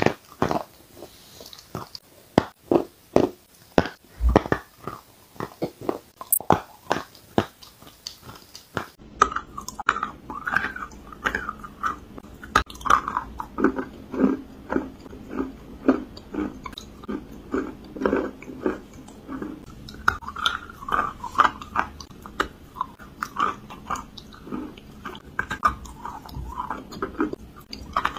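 Close-up mouth sounds of a person biting and chewing chalk. For the first several seconds it is sharp, separate crunching bites; after a cut about nine seconds in, it becomes denser, softer chewing.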